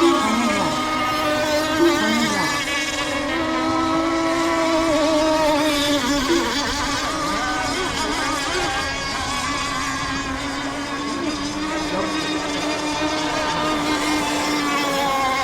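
Several radio-controlled racing boats' two-stroke engines running flat out: a steady high buzz, with a few quick drops in pitch as boats go by.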